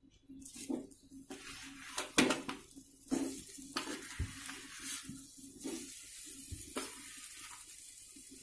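Mashed boiled potato going into a hot kadhai of besan masala fried in a little oil, sizzling, with a spoon knocking and scraping against the pan several times.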